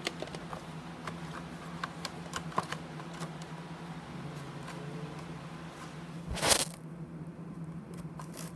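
Handling noise and rustling: scattered small clicks and scrapes, with one louder rustle about six and a half seconds in, over a steady low hum.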